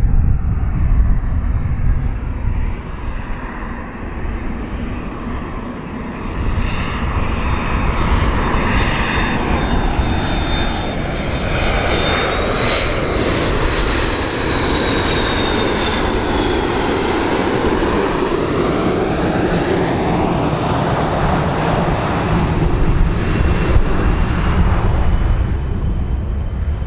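McDonnell Douglas MD-82 airliner's two rear-mounted Pratt & Whitney JT8D turbofans on landing approach as the jet passes close by: a steady jet rumble under a high whine that rises to a peak about halfway through and then falls away as the plane goes past.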